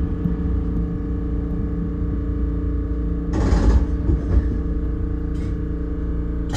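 Ichibata Electric Railway 7000-series electric train running, heard from inside the car: a steady low rumble with a constant hum, and a short hiss about three seconds in.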